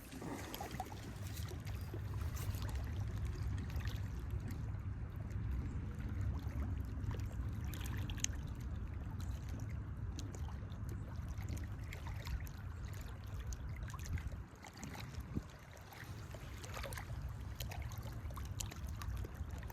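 Lakeshore ambience: a steady low rumble with light trickling, lapping water and a few scattered small clicks.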